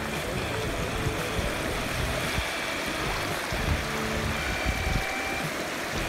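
Fast water rushing and churning white over and past a concrete edge: a steady rush. Faint held tones sit under it, changing pitch every second or so.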